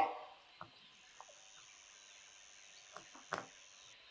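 A table knife working through a small cactus's loose potting soil and thin roots: faint scattered clicks and scrapes, with a sharper one right at the start and another about three seconds in. A thin, steady high tone sounds faintly from about a second in until near the end.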